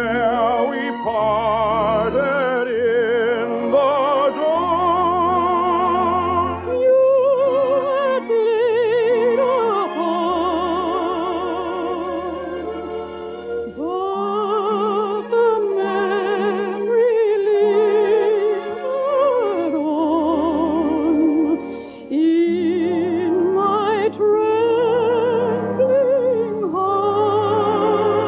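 Operetta song: one voice sings with wide vibrato, in long held and gliding notes, over a sustained orchestral accompaniment. The sound is a narrow-band old radio transcription, with nothing above the middle treble.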